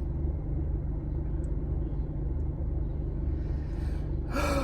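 Steady low rumble inside a car's cabin, the engine idling with the air conditioning running. Near the end there is a short vocal sound falling in pitch.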